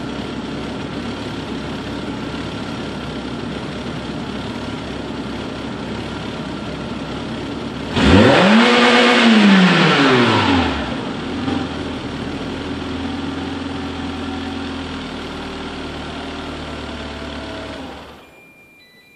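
Peugeot 106 Rallye 1.6 8v four-cylinder engine, on its stock exhaust with a Peugeot Sport chip, idling, then one sharp rev about eight seconds in that rises and falls back to idle over a couple of seconds. The engine sound cuts off near the end.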